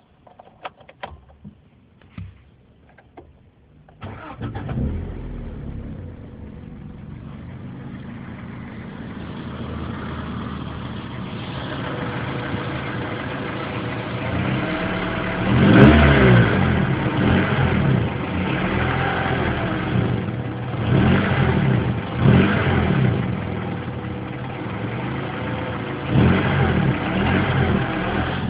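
A few clicks, then a car engine starts about four seconds in and idles, revved up and back down several times, the loudest rev near the middle.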